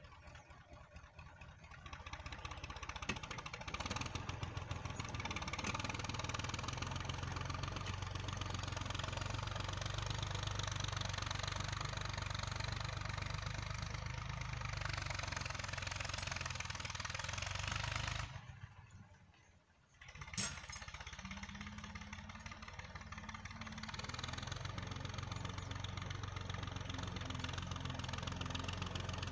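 Massey Ferguson 135 tractor engine running steadily under load while pulling a disc plough. The sound fades out briefly about two-thirds of the way through and comes back after a sharp click.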